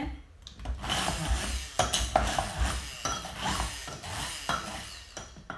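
Stick blender grinding salted cashews and nutritional yeast into a crumbly vegan parmesan in a glass bowl, with the blade end rattling and knocking against the glass. It runs from about half a second in and stops just before the end.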